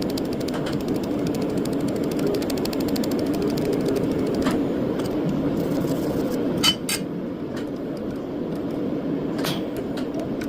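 Laser welding machine running with a steady hum, with a few sharp clicks at irregular intervals, two of them close together just past the middle.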